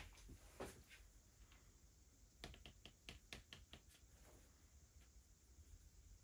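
Faint, light clicks over quiet room tone: one just after the start, then a quick run of about eight, roughly six a second, between two and four seconds in.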